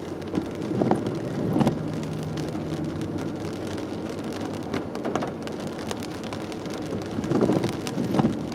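Car cabin in the rain: steady engine and road noise, with rain pattering on the windshield. The wipers sweep across and back twice, about a second in and again near the end.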